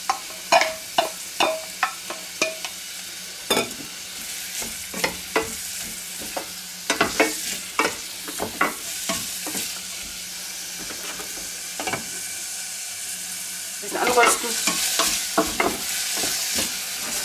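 Diced onions sizzling in hot clarified butter in a stainless steel pot, stirred with a wooden spatula that scrapes and knocks against the pot, each knock ringing briefly. The knocks come in clusters and are loudest near the end.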